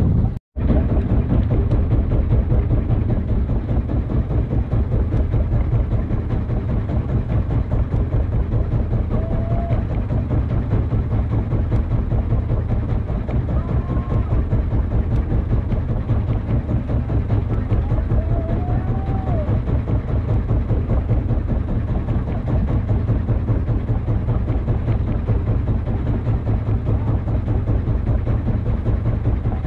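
Small wooden fishing boat's engine idling steadily with a fast, even beat. It cuts out for a moment about half a second in.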